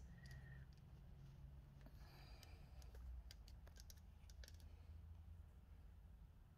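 Faint, scattered clicks and rubbing as the camera is handled and repositioned, over near silence.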